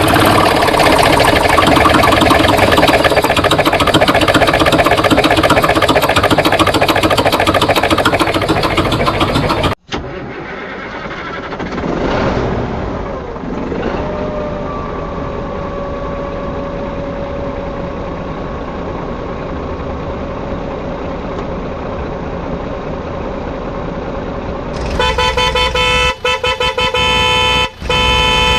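Vehicle engine noise that cuts off sharply about ten seconds in to a quieter steady hum with a rising, then held tone, followed near the end by a horn sounding with several held tones at once.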